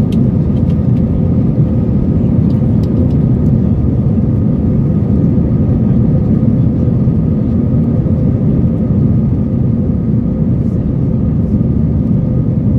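Steady jet airliner noise heard inside the cabin during the climb after takeoff: a low, even rumble of engines and airflow with a faint steady hum over it.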